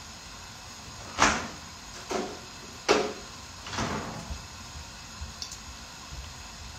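Kitchen cupboard doors being opened and shut: four short knocks and slides about a second apart, the first and third loudest.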